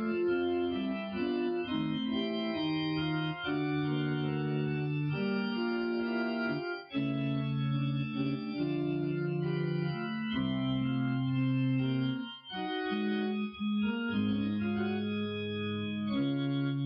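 Slow organ-voiced keyboard music: held chords that change every second or two, with brief breaks between phrases about seven and twelve seconds in.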